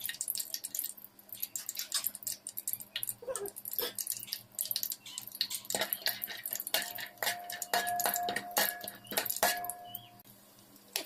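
Cashews and almonds frying in shallow oil, crackling with many small irregular pops. From about seven seconds in, a steady tone is held for about three seconds behind the crackle.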